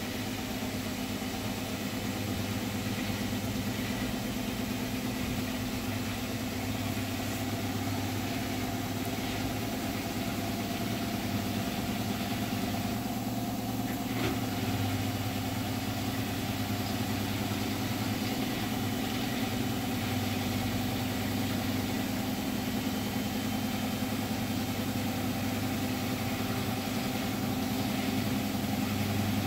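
Hotpoint washing machine drum spinning at high speed in its final spin, a steady humming drone.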